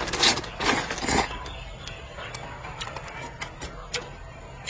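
A person slurping instant noodles from a bowl, several noisy pulls in the first second or so, then chewing with scattered small clicks.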